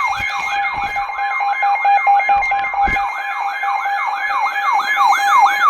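Weather radio receiver's alert siren sounding for a new severe thunderstorm warning: a loud electronic whoop that falls in pitch, repeated about three to four times a second over a steady tone.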